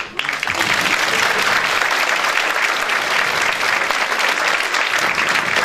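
Audience and cast applauding: dense, steady clapping that breaks out at once and holds level.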